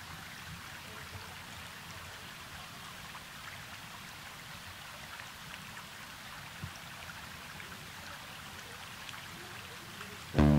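Faint, steady outdoor ambience: an even rushing hiss like running water, with small scattered ticks. Music starts suddenly right at the end.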